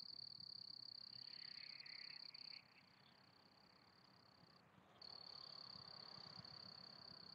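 Near silence with a faint, steady, high-pitched insect trill that breaks off for about two seconds midway and then resumes.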